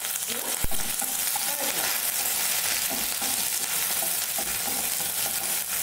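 Chopped ginger, garlic, green chillies and curry leaves sizzling in hot oil in a non-stick kadai as they are sautéed, with a wooden spatula stirring and scraping through them. A sharp knock comes about half a second in.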